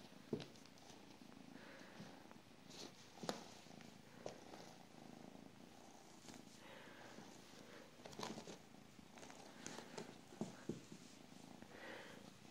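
A kitten purring faintly and steadily, with scattered soft taps and rustles as it tussles with a cloth toy on the carpet.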